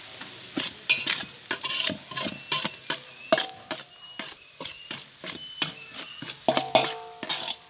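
Garlic sizzling in hot oil in a large metal basin while a utensil scrapes and knocks against the basin in quick stir-fry strokes, about two a second. Some strokes leave the metal basin ringing briefly, mostly in the last couple of seconds.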